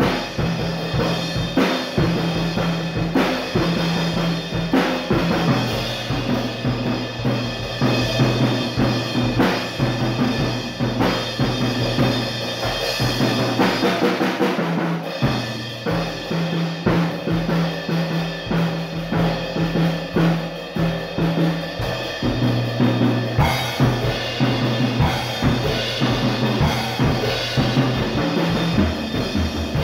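Rebel acoustic drum kit played freestyle: kick drum, snare and toms in quick, dense fills with cymbal hits, and a cymbal wash swelling about halfway through.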